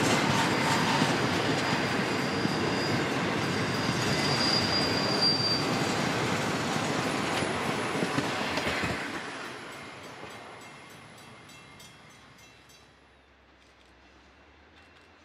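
Freight cars rolling past on steel rails, with a steady rumble and clatter of wheels. A high squeal rings out for a few seconds early in the passage. The sound fades away after the last car goes by, about nine seconds in, leaving only faint distant train noise.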